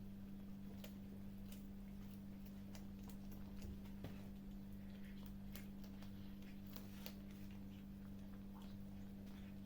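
Kittens eating, with faint, irregular clicks of chewing and crunching over a steady low hum.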